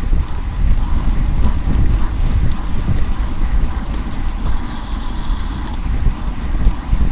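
Wind buffeting the microphone at bicycle racing speed: a loud, gusting low rumble, with faint higher bicycle drivetrain or tyre noise beneath it.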